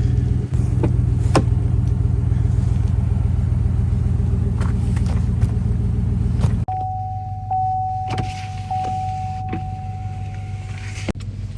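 Pickup truck engine running with a pulsing low rumble; about two-thirds of the way through it drops suddenly to a quieter hum, with a steady high tone over it for about four seconds.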